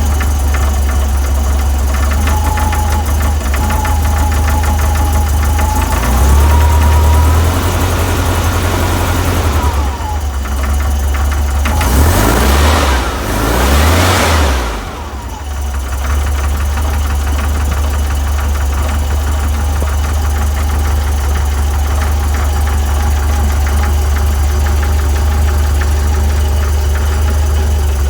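VW 1641cc air-cooled flat-four with twin Dellorto DRLA carburettors idling with a knock. The revs rise briefly a few seconds in, then are blipped twice around the middle before the engine settles back to idle. The knock was traced to an aftermarket crank pulley that had developed play.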